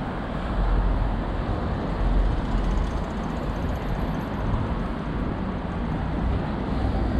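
Steady city street traffic noise: cars passing with a continuous low rumble.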